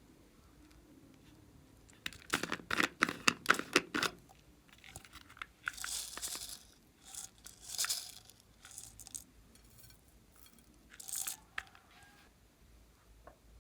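Glossy slime being squeezed and worked by hand: a run of sharp crackling clicks for about two seconds, then three shorter stretches of softer, airy crackling.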